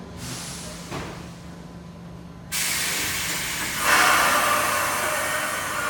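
MBTA Orange Line subway train pulling out of the station, with a sudden loud hiss of released air starting about two and a half seconds in and growing louder a second later.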